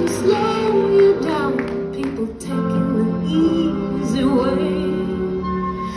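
Recorded song playing: a woman singing over instrumental backing, the music for a baton-twirling routine.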